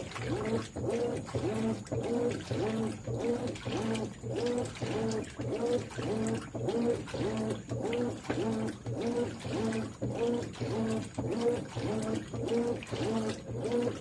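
Consul 13 kg Maxi Economia top-load washing machine agitating a full load in deep water: the motor's whine rises and falls with each back-and-forth stroke of the impeller, about two strokes a second, over a steady hum and the slosh of water and clothes.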